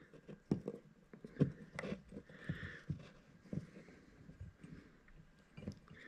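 Faint, scattered clicks and taps as fingers handle a small metal interior-light bulb socket and its wire.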